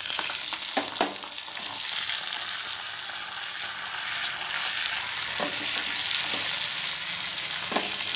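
Curry leaves, ginger and cashews dropped into hot ghee and oil in a small steel pan, breaking at once into a loud, steady sizzle as the tempering fries, with a few sharp pops.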